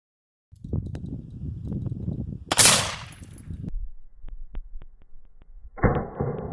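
Two gunshots about three seconds apart, the second with a sharp report that rings on with echo, over a low rumble.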